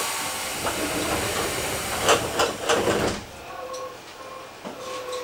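Compressed air hissing inside a Hokuso 7300 series electric train car at a station stop, with several loud clunks, cutting off about three seconds in. Quieter after that, with a few brief faint tones.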